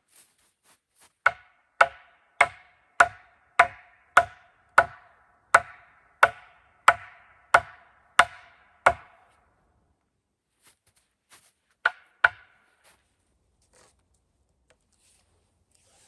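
Axe or hatchet chopping wood: a steady run of about thirteen sharp, ringing blows, roughly one every 0.6 seconds, then two more blows a few seconds later.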